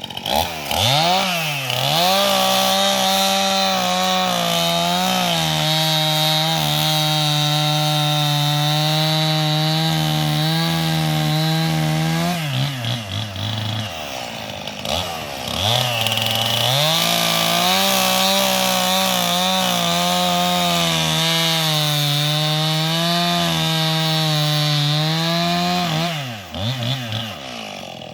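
Gas chainsaw bucking a felled tree trunk into chunks: the engine revs up and is held at full throttle through two long cuts of about ten seconds each, dropping to idle in between and again near the end.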